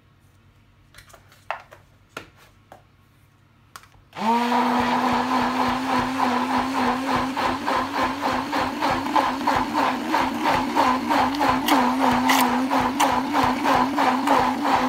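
A Tefal stick blender gives a few light knocks as it is set in the jug, then starts about four seconds in. It runs steadily, its hum wavering slightly as it churns thick vegan mayonnaise in a plastic jug.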